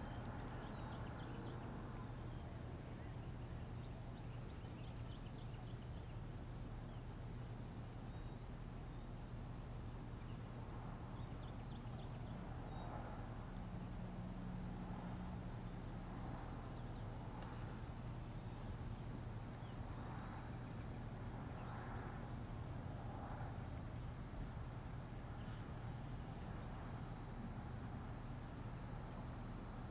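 Steady high-pitched insect buzzing outdoors that swells louder about halfway through, over a low steady hum.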